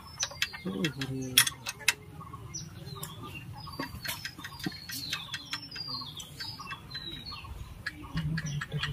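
Small birds chirping over and over in short falling notes, with scattered sharp clicks and taps throughout.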